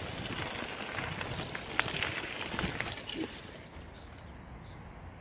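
Crackling, rattling ride noise from a bicycle trailer rolling along a gravel towpath, with wind on the microphone. About three and a half seconds in it drops to a quieter outdoor background with a few faint high chirps.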